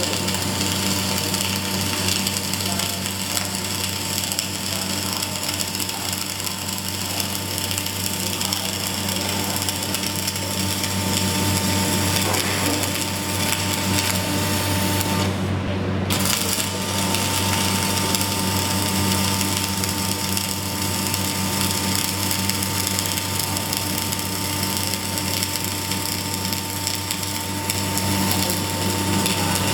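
Electric arc welding: a steady crackling hiss over a constant low hum, the crackle cutting out for about a second near the middle before resuming.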